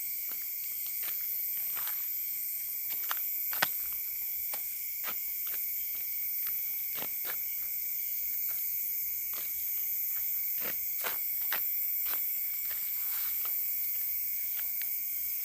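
Night chorus of crickets and other insects, a steady high-pitched trilling at several pitches at once. Short soft clicks and taps are scattered through it at irregular intervals.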